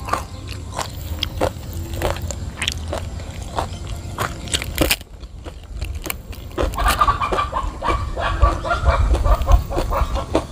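Crisp fried spinach chips crunching and crackling in sharp, separate snaps as they are chewed and broken apart by hand. From about seven seconds in, a chicken clucks repeatedly.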